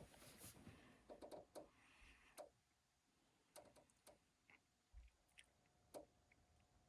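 Near silence with a scattered series of faint short clicks and taps. A faint steady hum comes in about five seconds in.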